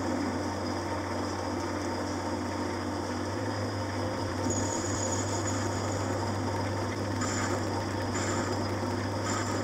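Metal-turning lathe running steadily with a low motor hum while a cutting tool machines the rim of a small model steam engine's flywheel. A higher cutting hiss comes and goes several times in the second half.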